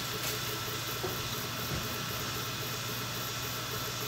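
V-King 400 CoreXY 3D printer running mid-print: a steady hum, whine and hiss of its fans, with the stepper motors driving the print head back and forth.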